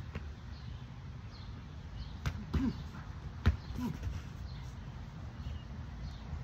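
A few sharp smacks of boxing gloves landing during sparring, the loudest about three and a half seconds in, over a steady wind rumble on the microphone, with a bird chirping repeatedly.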